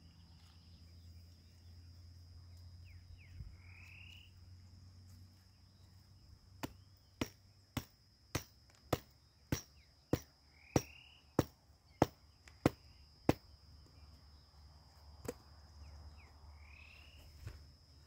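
About a dozen sharp, evenly spaced blows, roughly 0.6 s apart, starting a third of the way in and stopping a few seconds later, like something being struck or chopped by hand. Behind them an insect drones on one steady high note, and a bird gives a short rising chirp three times.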